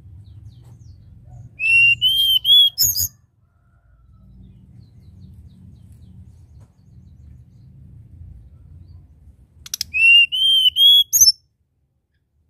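Hill blue flycatcher singing two short whistled phrases, one about two seconds in and one near the end. Each phrase is a run of three or four arched notes finished with a sharp high note.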